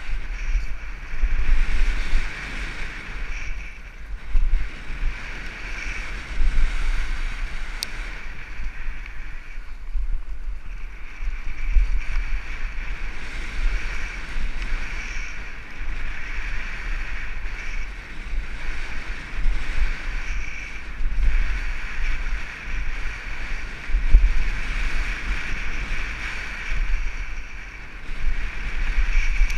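Wind buffeting a helmet-mounted action camera's microphone, with the rumble and rattle of a mountain bike riding fast down a dirt trail, surging unevenly with a steady high buzz beneath.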